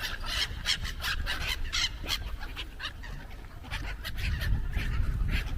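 A flock of waterbirds squabbling over thrown bread, with many short, harsh calls in quick succession.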